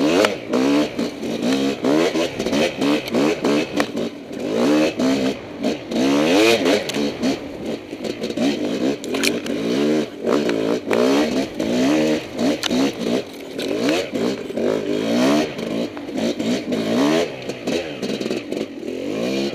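Kawasaki KX 250 two-stroke dirt bike engine being ridden hard, revving up and dropping back again and again, about once or twice a second, as the throttle is worked through tight turns. Clattering from the bike's chassis can be heard along with it.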